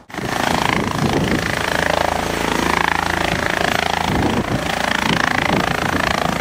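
Turbine helicopter hovering low over a helipad, its rotor and engine running loud and steady. The sound starts abruptly.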